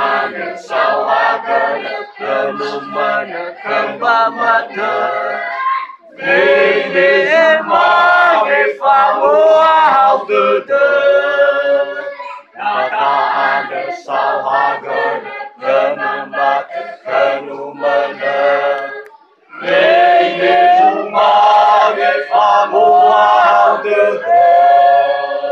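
A group of voices singing unaccompanied in the Nias language. Thinner sung lines alternate with louder, fuller stretches from the whole group, twice over, in the manner of maena call-and-response between a song leader and the gathering.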